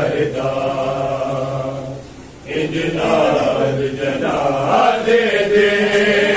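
Men's voices chanting a noha, a Shia lament for Imam Hassan, in long held lines, with a short break about two seconds in.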